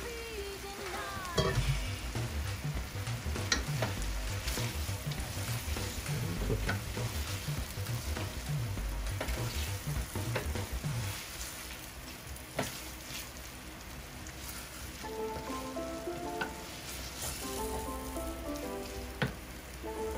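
Chicken pieces sizzling in a stainless-steel pot as a wooden spoon stirs them, with now and then a sharp knock of the spoon against the pot.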